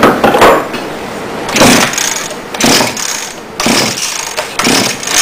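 Small engine fed on HHO gas being cranked to start, with short loud bursts about once a second. It does not settle into a steady run.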